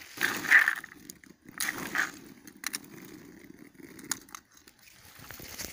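A hand rummaging through freshly picked lingonberries in a plastic bucket. The berries and leaves rustle and crackle, with a few louder bursts in the first two seconds.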